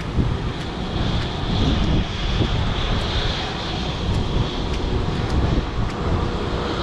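Wind buffeting the microphone in a gusting low rumble, with scattered sharp splashes of footsteps through shallow floodwater.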